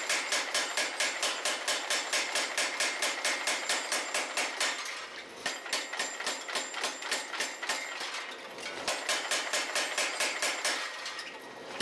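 Mechanical power hammer striking a red-hot forge-welded billet of wrought iron and 1084 steel in rapid, regular blows, about five a second, drawing it out into flat bar stock. The blows ease off briefly a few times.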